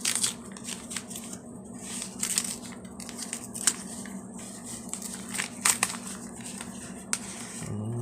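Paper and plastic packaging crinkling and rustling in irregular bursts, with small clicks and taps, as a mailer package is opened by hand.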